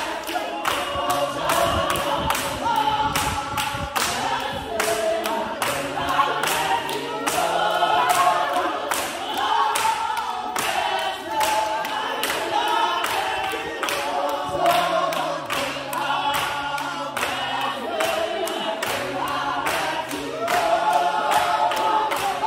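A congregation singing a lively chorus together over a steady beat of about two strikes a second, with low bass notes moving underneath.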